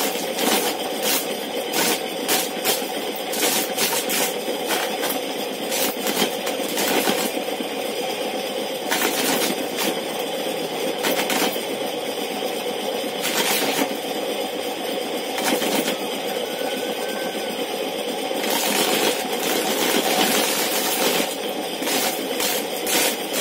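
Homemade corn sheller, a wheel driven by a repurposed ceiling-fan motor, running steadily as a dried corn cob is pressed against it. The kernels are stripped off with a rapid, irregular clatter of clicks over the motor's hum.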